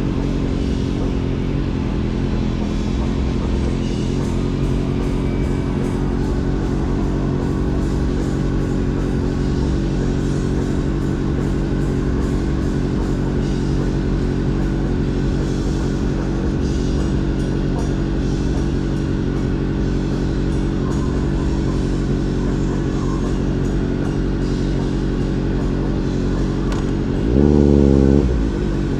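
Motorcycle engine and exhaust holding a steady speed while riding. Near the end a brief louder rev rises and falls in pitch.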